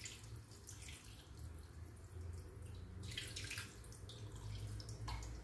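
Gravy poured from a stainless steel pressure cooker pot into a wok of pork pieces, trickling and splashing in uneven spurts. The strongest pour comes about three seconds in.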